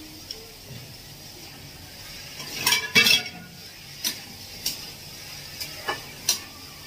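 A metal spatula clinking and scraping against a kadhai (wok) of cooking vegetables over a faint steady hiss. There is a louder clatter about three seconds in, then several separate sharp clinks as the pan is stirred.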